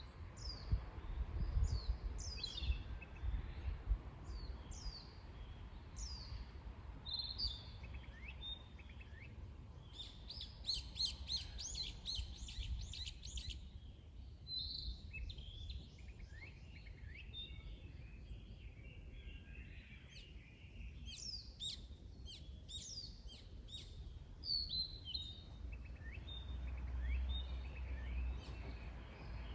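Several wild songbirds singing and calling: repeated short downslurred whistles and fast trills, busiest in two spells about a third and three quarters of the way through. Under them runs a low rumble that swells near the start and near the end.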